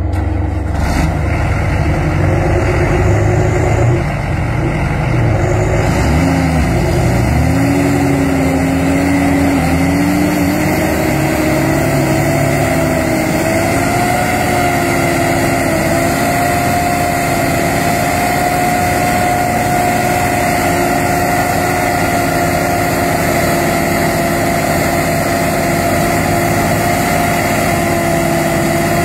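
Heavy diesel engines of a mud-stuck tracked John Deere 8410 and the Kirovets K-701 towing it, running hard under load. The engine note sags and wavers about six seconds in, then climbs and holds high and steady.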